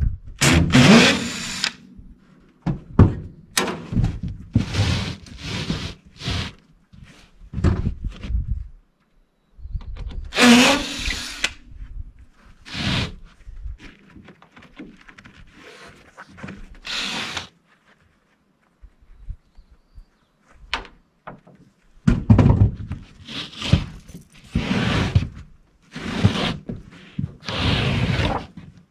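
Outdoor carpet being torn up off a floor: a run of rasping rips and tearing sounds with thuds as sections are pulled loose and flopped over, with a short lull in the middle.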